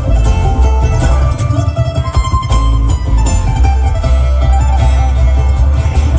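Bluegrass string band playing live and loud: banjo, mandolin and acoustic guitar picking over a plucked upright bass, in an instrumental stretch with no singing.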